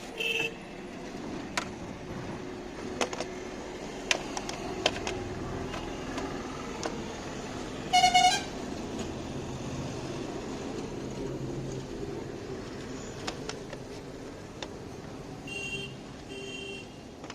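Scattered sharp metal clicks and knocks of hand tools working on a car's starter motor, over a steady hum of traffic. A vehicle horn toots once for about half a second about eight seconds in, the loudest sound; shorter, higher beeps come just after the start and twice near the end.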